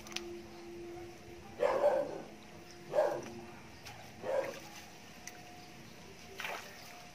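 Dog barking, four or five short barks spaced about a second or more apart.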